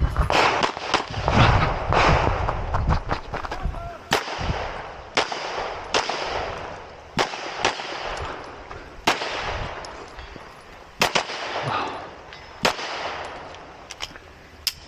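Rapid 9mm pistol fire from a Canik METE SFT Pro, a quick string of loud shots in the first few seconds. After that come quieter single shots spaced roughly a second apart.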